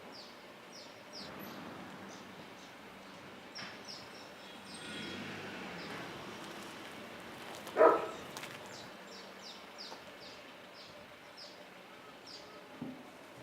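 Small birds chirping repeatedly over a steady outdoor background hiss. About eight seconds in, a single short, loud sound stands out above the birdsong.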